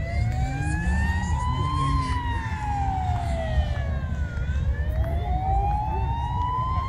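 A siren wailing slowly, its pitch gliding up and down about once every four to five seconds, over a steady low rumble.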